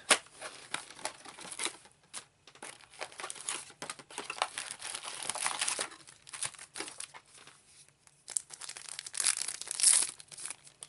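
Plastic and foil packaging of trading-card booster boxes being torn open and crinkled by hand, in irregular bursts, with the loudest rustling about halfway through and again near the end.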